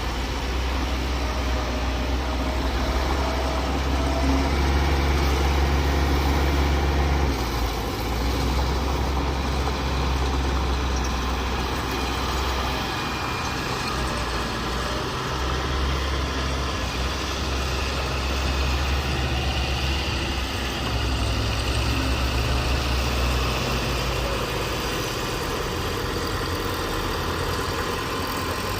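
Diesel engine of earthmoving machinery running, a deep steady rumble that swells in the first seven seconds and again from about fifteen to twenty-three seconds.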